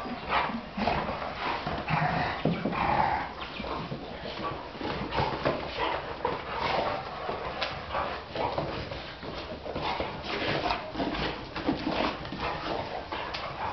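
Young dogs and an adult dog play-fighting on a tiled floor: their claws click and scrabble on the tiles throughout, mixed with short dog vocalisations.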